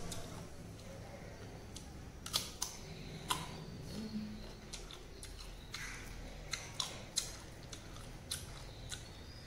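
A person chewing crisp raw green mango: scattered sharp crunches and mouth clicks, about a dozen spread through.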